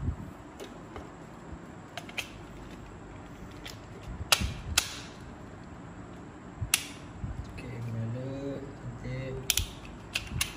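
Sharp plastic clicks and knocks, a second or two apart, as a plug-in socket tester is pushed into and pulled out of three-pin wall sockets.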